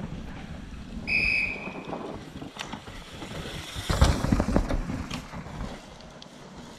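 A short whistle blast about a second in, then a downhill mountain bike coming through a loose dirt turn about four seconds in: tyres sliding and skidding in the dust, with clattering knocks from the bike.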